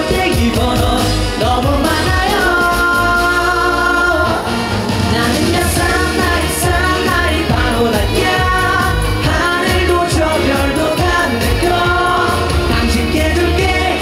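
Korean dance-pop song playing loud, with a steady heavy beat under a melody.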